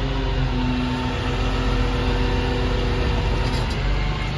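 Cummins straight-six diesel of a Ram 5500 rollback running at idle with the PTO engaged to drive the bed's hydraulics: a steady low hum with a held tone over it that breaks and shifts a few times.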